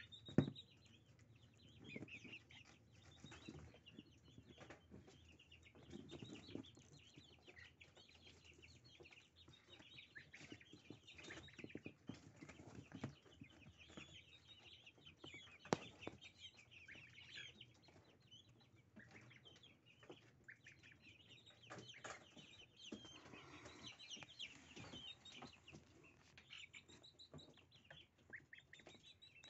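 Goslings peeping softly and continuously while feeding on a bunch of dill, with scattered sharp clicks and rustling from their bills pecking and tugging at the stems; the loudest click comes about half a second in.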